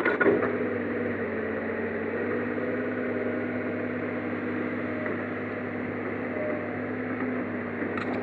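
Komatsu crawler excavator's diesel engine running steadily as the machine digs and lifts brush, with a short clatter right at the start.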